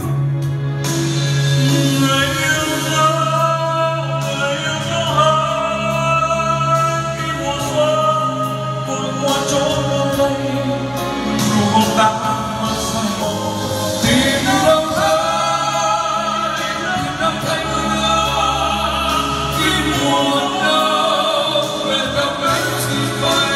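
Two men singing a slow Vietnamese ballad together into handheld microphones over a karaoke backing track, amplified through the room's sound system run by a Dynacord CMS 1000 mixer.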